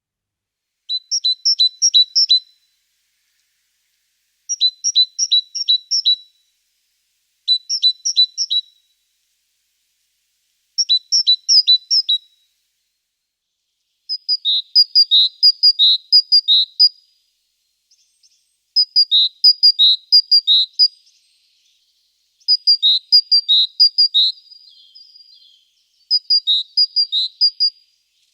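A small songbird singing the same short phrase over and over: each phrase is a quick run of four to six high, paired notes, with a pause of one to two seconds between phrases. The later phrases are a little longer.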